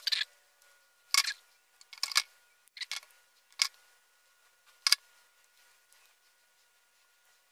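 Short, sharp clicks and ticks of small parts being handled on a workbench, about seven in the first five seconds and then quiet.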